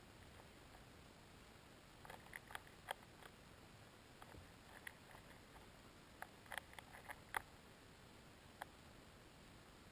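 Faint underwater ambience picked up by a submerged camera in a lake: a steady low hiss with scattered short, sharp clicks, a small cluster about two to three seconds in and another about six to seven and a half seconds in.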